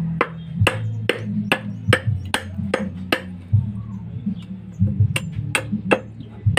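A large knife blade chopping into a small piece of wood: sharp knocks about twice a second for the first three seconds, a pause, then a few more near the end. Background music runs underneath.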